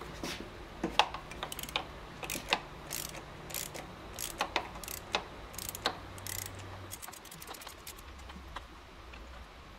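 Ratchet wrench clicking in irregular short runs, with clinks of the socket and extension, as a spark plug is loosened and drawn out of a motorcycle cylinder head.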